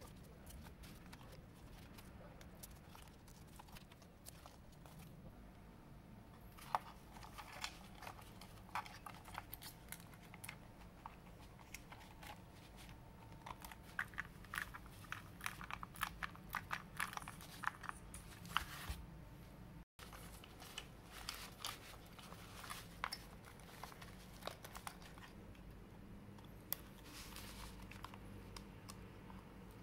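Gateron Yellow mechanical key switches with number-pad keycaps in a walnut case, pressed in quick, uneven runs of key clacks. The clacks start about six seconds in and are thickest in the middle. A faint low hum lies underneath.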